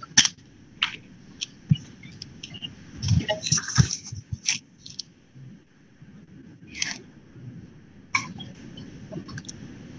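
Scattered short clicks and rustles, a dozen or so, irregularly spaced over a faint low hum, busiest about three to four seconds in.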